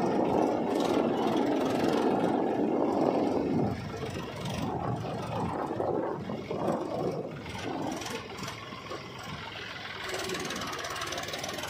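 Mahindra 275 DI tractor's three-cylinder diesel engine running under load as it pulls a loaded soil trolley through mud. The engine is loudest for the first few seconds, then drops noticeably about a third of the way in and runs on more quietly.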